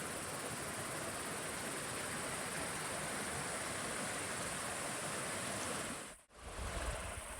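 Steady rushing of a mountain creek's flowing water. It cuts out abruptly about six seconds in and comes back with a lower rumble.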